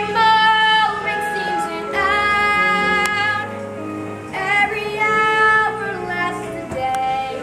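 Musical theatre music: a girl's or woman's voice singing long, held notes with vibrato over accompaniment.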